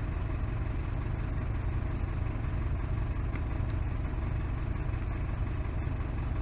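Isuzu D-Max pickup engine idling steadily with the air-conditioning compressor engaged. Its magnetic clutch is pulled in by shorting across the AC switch contacts, which shows the compressor works and the fault lies in the switch's worn carbon resistor.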